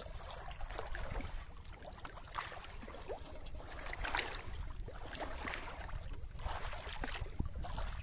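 Shallow pond water sloshing and splashing around the legs of a person wading, in short repeated splashes every second or so, with wind rumbling on the microphone.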